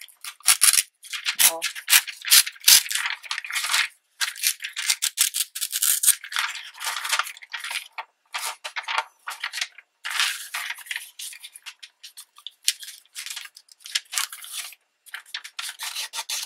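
Paper and thin cardboard rustling and crinkling in irregular bursts as a flattened paperboard tea box and magazine pages are handled and folded.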